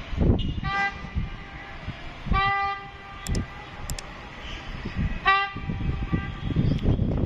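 An approaching train's horn sounding several separate toots, some short and one longer, over a steady low rumble.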